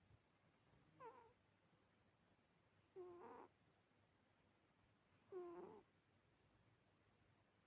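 Domestic cat meowing three times, short faint calls about two seconds apart, the first sliding down in pitch.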